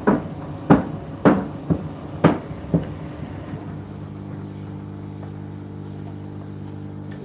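Indesit IDC8T3 condenser tumble dryer running: laundry thumps against the turning drum about twice a second for the first three seconds, then the thumping stops and a steady motor hum carries on.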